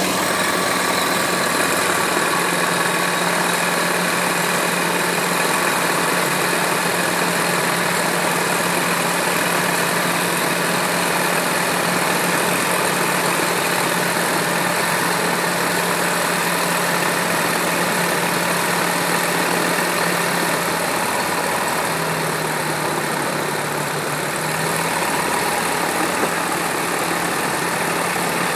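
Van's RV-12 light aircraft's Rotax 912 flat-four engine idling steadily with the propeller turning, on the newly built plane's first engine run. About three-quarters of the way through, the engine note drops slightly and then comes back up.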